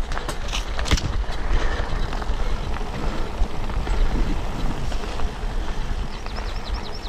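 Bicycle rolling along a gravel track: tyres crunching over loose stones and the bike rattling, with a steady low rumble of wind on the microphone. There are a few sharp clicks about a second in.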